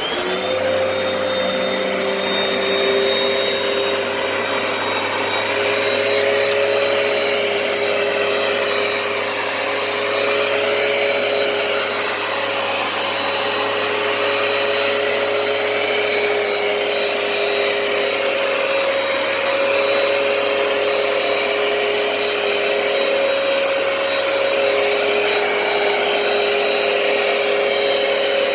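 Hoover PowerDash compact carpet cleaner switched on, its motor spinning up with a brief rising whine, then running steadily with a high whine over the suction noise.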